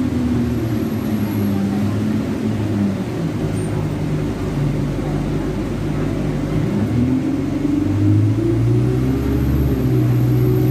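Alexander Dennis Enviro200 single-deck bus's diesel engine heard from inside the passenger saloon. Its note falls over the first few seconds, then rises again from about seven seconds in as the bus picks up speed, settling at a higher, steady pitch.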